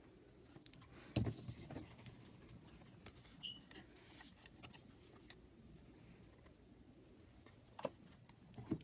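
Hands handling a tarot deck and its packaging: a few soft knocks and taps, the loudest about a second in and two more near the end, with light rustling of cards and paper between them.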